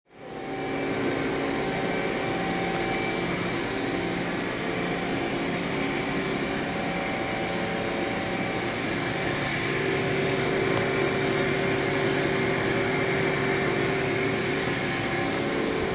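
A powered-up Mori Seiki NT 4300 DCG/1500 CNC turning and milling center running: a steady machine hum with several held tones.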